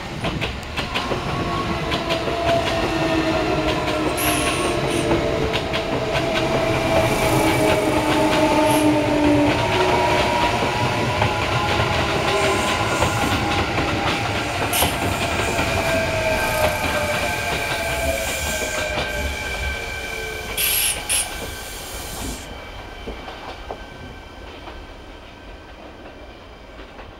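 Kintetsu electric trains, a Series 21 commuter set and an Urban Liner Next limited express, running past close by. Their inverter-driven traction motors whine in several tones that slide up and down over a rumble of wheels on rail joints. Brief high-pitched squeals come a few seconds in and again about twenty seconds in, and the sound fades away near the end.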